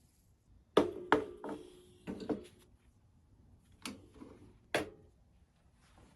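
A series of sharp knocks and clanks, about seven in four seconds and uneven in spacing, several leaving a brief ringing tone, as of hard objects being handled and set down.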